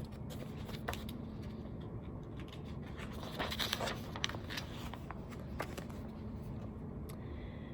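Light rustling and scraping of paper with a few small clicks, a picture-book page being handled and turned, over a faint steady room hum; the rustle is loudest a little past the middle.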